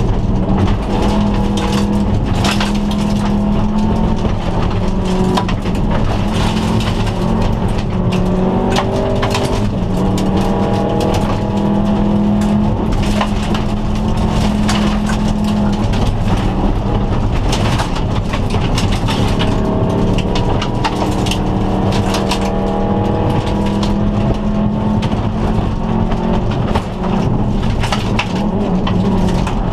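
Turbocharged flat-four engine of a 2002 Subaru Impreza rally wagon, heard from inside the cabin at full stage pace. Its pitch repeatedly rises and drops as it pulls through the gears. Gravel hisses under the tyres and stones click against the underbody throughout.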